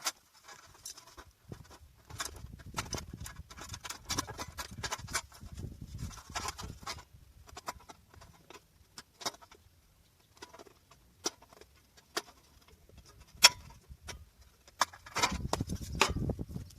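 Irregular taps, clicks and scrapes of hand-tool work on the car body, some in quick runs, with one sharp knock about two-thirds of the way in and a louder scraping stretch near the end.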